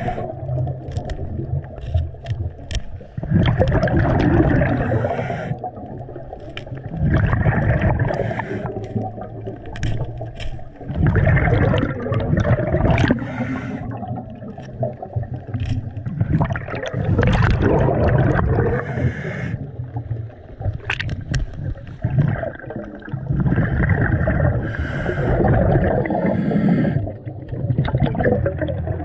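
Rushing, gurgling water coming in surges every few seconds.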